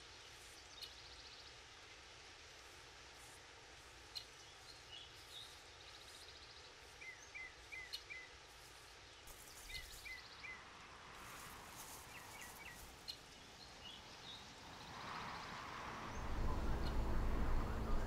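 Quiet outdoor ambience with small birds giving short, quick chirps in scattered groups over a faint steady background. About sixteen seconds in, a loud low rumble comes in and takes over.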